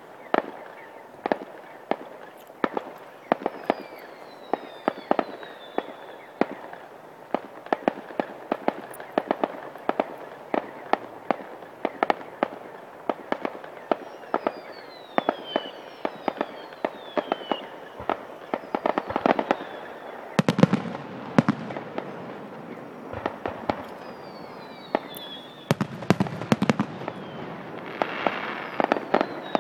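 Fireworks display: a steady run of sharp bangs from bursting shells, with several falling whistles. A louder cluster of bangs comes about two-thirds of the way through and again near the end, followed by crackling.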